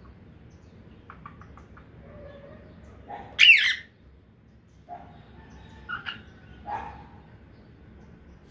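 Cockatiel calling: a few soft chirps, then one loud, harsh squawk about three seconds in, followed by three shorter calls.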